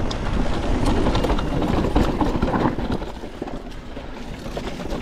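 Niner WFO e9 mountain bike descending a dirt trail at speed: tyres rolling over dirt and rocks, with a constant clatter of knocks and rattles from the bike over bumps and wind buffeting the microphone. It eases off for a moment about three seconds in.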